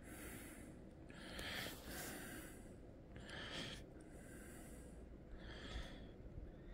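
Soft breathing close to the microphone: a handful of short breaths, spaced a second or so apart.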